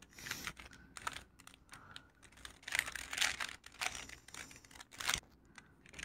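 A plastic 3x3 Rubik's cube having its layers turned by hand, making quiet, irregular clicks and short scratchy rasps as the faces snap round.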